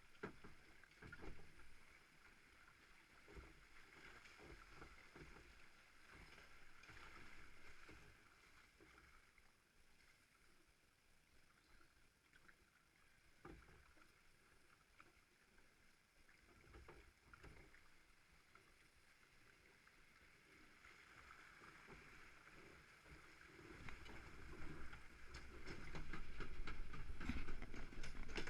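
Log flume boat moving along its water channel: quiet water noise with occasional knocks of the boat. In the last few seconds this grows into a louder rumble with rapid clattering.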